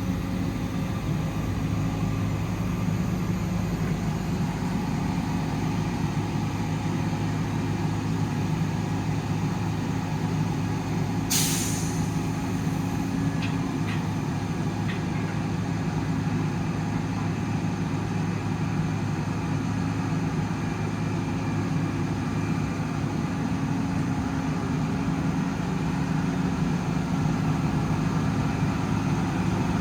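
Cummins ISL 8.9 diesel in a Freightliner M2 truck running steadily. About eleven seconds in there is a short, sharp hiss of released air, followed by a few faint ticks.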